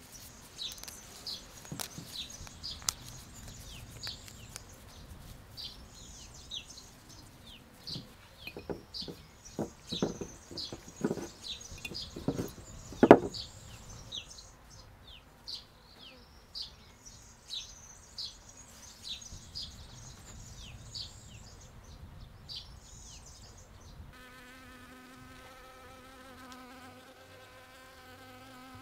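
Soft handling of rose petals, with scattered rustles and clicks and one sharp knock about 13 seconds in, over repeated high chirping. Near the end a honeybee buzzes steadily in a low, even hum.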